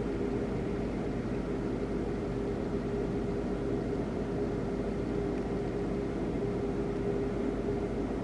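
A steady mechanical hum: an even rushing noise with a constant low tone, unchanging throughout.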